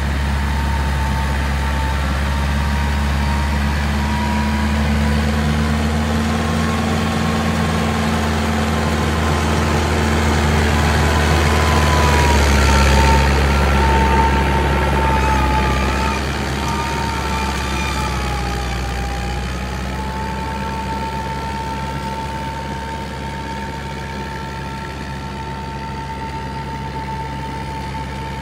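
Fiat 640 tractor's four-cylinder diesel engine running steadily under load while pulling a rotavator, with a thin high whine over the engine note. It grows louder about halfway through, then eases off.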